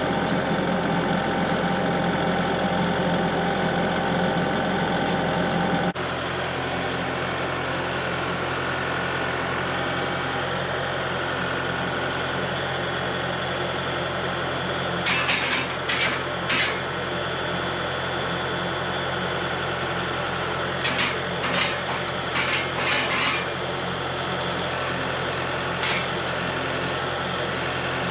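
Kubota tractor's diesel engine running steadily, with an abrupt change in its sound about six seconds in. Short, sharp, higher-pitched bursts come in clusters about halfway through and again a few seconds later.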